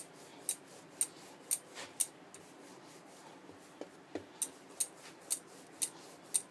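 Light, sharp clicks about twice a second, with a pause of a second or so in the middle, as dough is rolled back and forth by hand on a chopping board to shape it into a rope.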